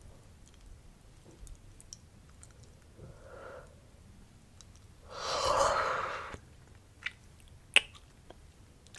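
A close-miked yawn: a long, loud breathy exhalation of over a second about five seconds in, after a softer breath, followed by a few sharp mouth clicks.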